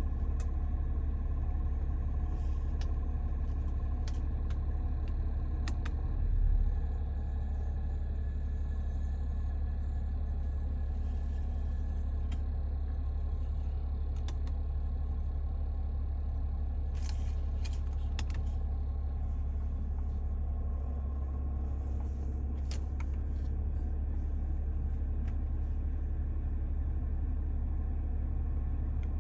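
Newly installed air-conditioning compressor running with a steady low drone, a noise the owner finds abnormal for a new unit. There is a brief louder swell about six seconds in and a few faint ticks.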